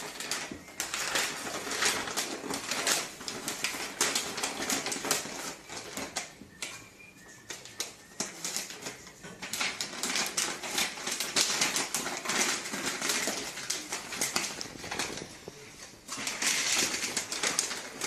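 Wrapping paper and tissue paper rustling and crinkling in uneven spells as hands fold it over, with a quieter stretch about halfway through.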